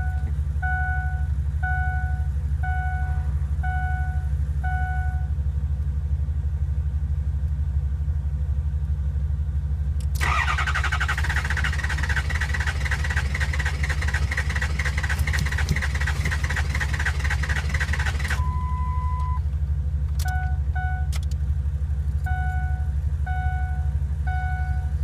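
Truck chime dinging about once a second, then the starter cranking the 2003 Ford F250's 6.0 Powerstroke V8 diesel for about eight seconds without it firing: a crank-no-start with the injection control pressure (ICP) sensor unplugged. A single longer tone follows, a few clicks, and the chime starts again; a steady low hum runs underneath.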